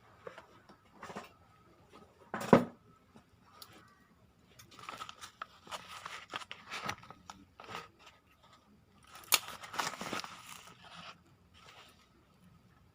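A parcel's plastic and paper packaging being torn and cut open and handled: irregular crinkling, rustling and tearing, with one sharp loud crackle about two and a half seconds in and two longer stretches of rustling later.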